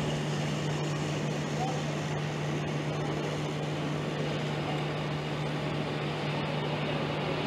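Steady outdoor street noise with a constant low hum.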